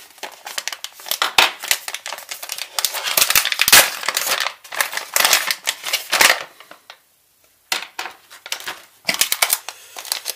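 Plastic packaging bag crinkling as it is handled and opened: a dense stretch of crinkling, then a short pause and a few shorter bursts near the end.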